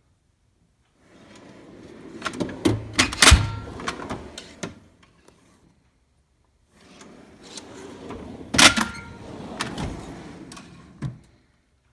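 Metal drawers of a Snap-on tool box rolling on their slides and shutting with sharp metal clacks, twice: once about a second in and again about seven seconds in.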